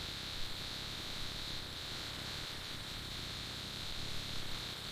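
Many young broiler chicks cheeping together, blending into a steady, high-pitched chatter over a hiss.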